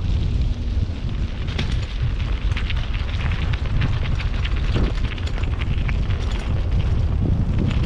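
Wind rumbling on the camera microphone while cycling, with a steady stream of small crackles and ticks over it.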